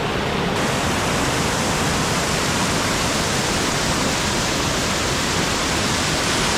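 Waterfall running: a loud, steady, even rush of falling water. The higher hiss grows brighter about half a second in.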